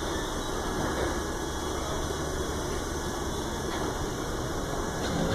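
CPTM electric commuter train unit 4429 growling steadily as it sets off from the station, getting louder near the end as it gathers way.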